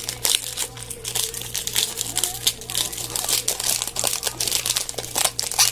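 Trading cards being handled and sorted: irregular rustling and crinkling with quick clicks, over a steady low hum.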